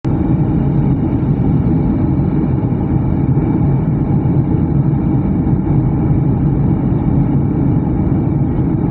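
Steady low rumble of engine and airflow noise inside a jet airliner's cabin as it descends to land.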